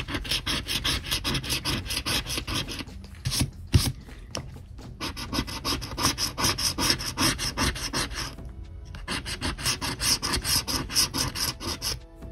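A coin scratching the latex coating off a scratch-off lottery ticket in rapid back-and-forth strokes, with a few short pauses, over faint background music.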